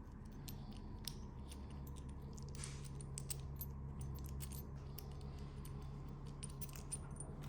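Faint, scattered light metallic clicks and taps as a nut is unscrewed by hand from a wheel bolt and its washers are handled, over a low steady hum.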